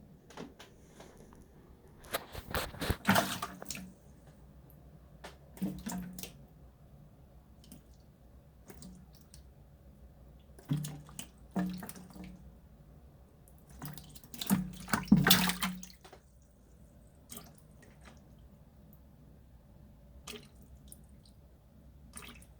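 Water splashing and dripping in short spells a few seconds apart, loudest about three seconds in and again about fifteen seconds in, as an American bullfrog moves in the shallow water of its enclosure while feeding on a mouse.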